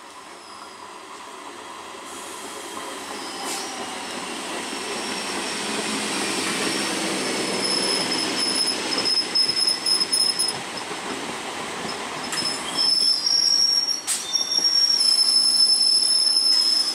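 EMU local train approaching and passing at speed: the running noise of its wheels on the rails grows steadily louder. From about halfway through, a high-pitched wheel squeal comes and goes.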